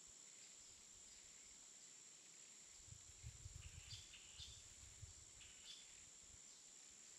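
Near silence: a faint steady high-pitched hiss, with a few soft low knocks about halfway through.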